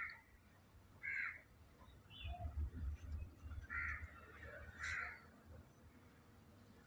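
A crow cawing: two pairs of short harsh caws, each pair about a second apart, with a low rumble in between.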